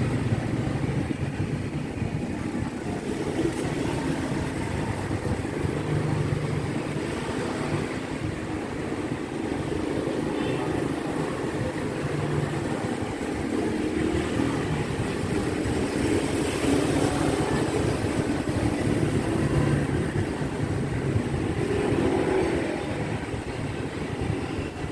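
Steady low background rumble, motor-like, rising and falling a little.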